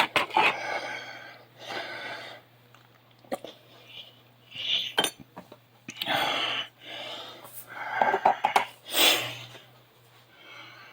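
Kitchen handling sounds: irregular scraping and several sharp clicks of utensils against dishes, over a steady low hum.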